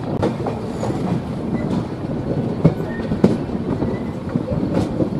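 Wheels of a moving Indian Railways passenger coach running on the rails: a steady rumble with irregular sharp clicks as the wheels pass over rail joints.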